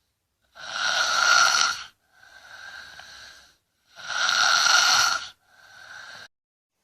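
A child snoring heavily: two loud snoring breaths, each followed by a quieter breath.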